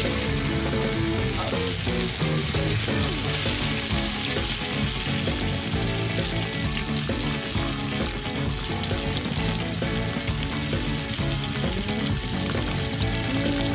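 Oil sizzling and crackling steadily in a frying pan where two whole isaki (chicken grunt) are pan-frying with cherry tomatoes in olive oil.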